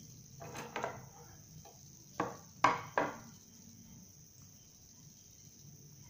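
A handful of short knocks of a dry wooden twig against a wooden board, about five in the first three seconds, the loudest a little past two and a half seconds in. A faint steady high hiss underneath.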